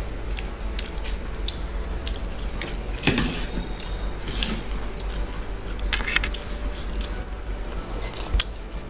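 Close-miked eating by hand: chewing, and fingers squishing and mixing soft khichuri on steel plates. Scattered small clicks and smacks, louder about three seconds in, around six seconds and near the end, over a low steady hum.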